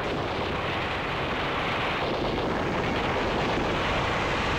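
Military tank running: a steady noise of engine and tracks, with no distinct shots or blasts.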